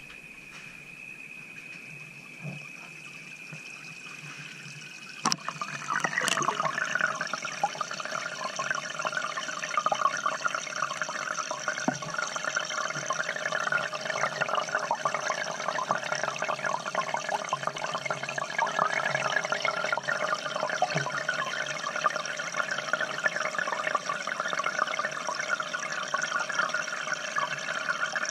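A sharp knock about five seconds in, then steady bubbling and trickling of aquarium water, heard through a GoPro submerged in a goldfish tank. Before the knock there is a faint steady high tone.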